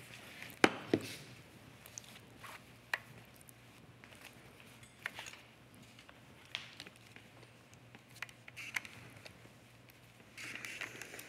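Handling noises while pressing fabric with a steam iron: scattered light knocks and taps as the iron and fabric are picked up, moved and set down, and a short soft hiss about ten seconds in.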